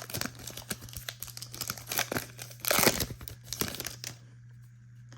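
Foil trading-card pack wrapper being crinkled and torn open by hand, in irregular crackles for about four seconds, loudest near the three-second mark, then stopping.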